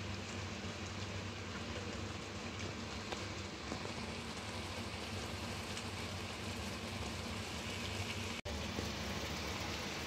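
Bitter melon, tomato and salted mustard greens simmering in a wok over a gas burner: a steady sizzle with small pops.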